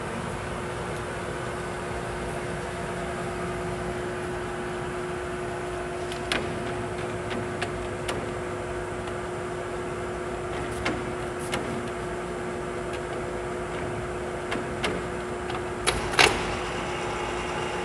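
Steady electric hum of a large engine lathe's drive running, with a few sharp clicks as the carriage apron's handwheels and levers are worked and a louder clunk near the end.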